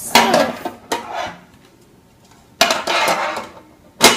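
Small plastic Shopkins figures clattering and rattling against a metal storage tin as they are handled and tipped in, in four separate bursts, the longest about two and a half seconds in.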